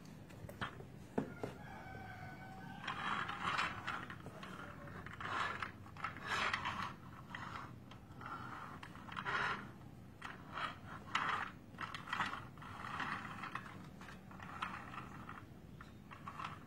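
Plastic clicking, rattling and scraping in a series of short, irregular bursts as hands handle a building-block dump truck toy and work its tipping bed. A rooster crows faintly in the background about two seconds in.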